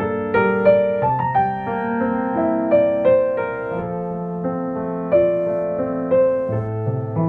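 Slow, gentle piano music: melody notes and chords struck one after another and left to ring over low held bass notes.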